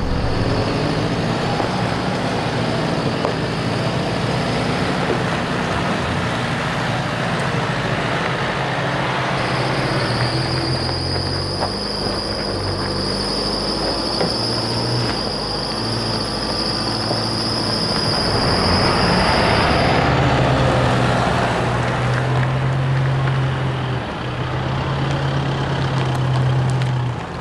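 4WD utes' engines pulling slowly up a rutted dirt climb, with tyres grinding over the rocks and dirt. From about ten seconds in, a high, steady squeal sounds for about ten seconds over the engines, then stops; the engine sound is strongest near the end.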